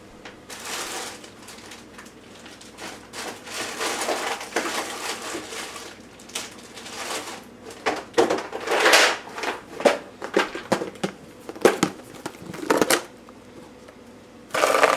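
Rustling of a plastic bag of frozen strawberries, then a run of sharp knocks as the hard frozen berries drop into the blender's plastic cup.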